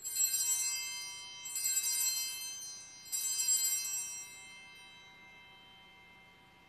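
Altar bells rung three times, about a second and a half apart, the ringing fading away slowly after the third, marking the elevation of the host at the consecration of the Mass.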